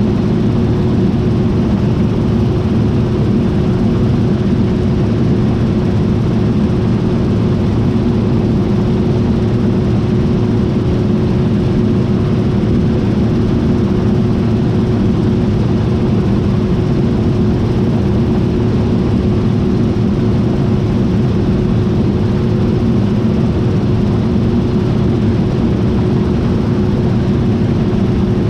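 John Deere T660i combine harvester running steadily: a continuous loud engine and machinery drone with a steady whine over it.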